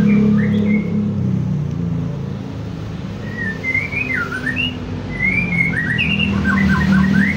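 A songbird chirping and whistling in short rising and falling notes, a few early and then quick runs of notes from about three seconds in. Under it runs a steady low hum.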